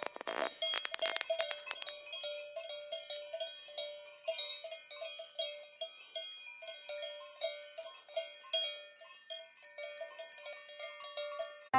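Cowbells on grazing cattle clanking irregularly, with a quick flurry of clangs in the first second or so and then scattered single strikes.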